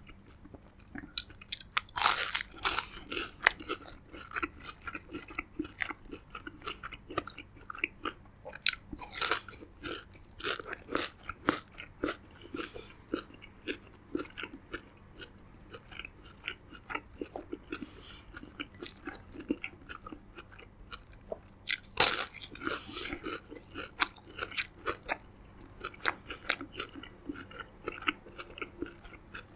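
Close-miked eating sounds: a person biting and chewing crunchy food, with many small wet mouth clicks and two loud crunching bites, about two seconds in and again near twenty-two seconds.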